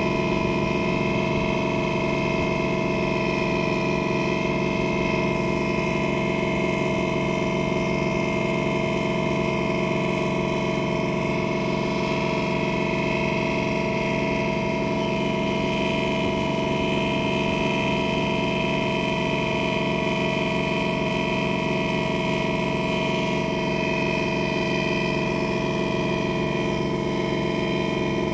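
The engine of a river boat running steadily while under way: a constant, unchanging drone.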